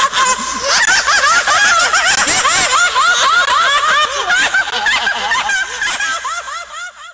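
Several voices laughing together in quick repeated bursts, fading away near the end.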